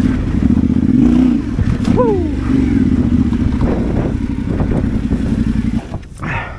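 Yamaha Ténéré 700 World Raid's parallel-twin engine running steadily while riding. The engine note drops away near the end, leaving a rush of wind noise.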